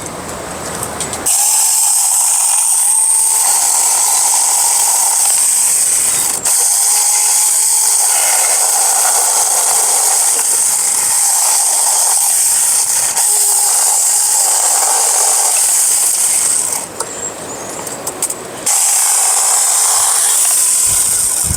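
Saker battery-powered mini chainsaw running with a steady high whine as it cuts suckers off a tree. It stops for about two seconds near the end, then runs again.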